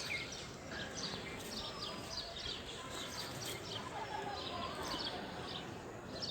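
Small birds chirping and calling repeatedly in quick short notes, over a steady background hiss.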